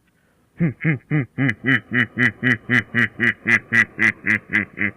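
A low human voice repeating a short, huffed vocal sound effect, about four times a second, starting about half a second in. It was asked for as 'fun fun' but comes out as 'fu fu fu'.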